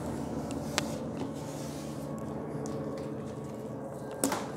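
Soft handling of a sheet of watercolour paper on a drawing board, with a faint click about a second in and a sharper crackle or tap near the end, over a steady low hum.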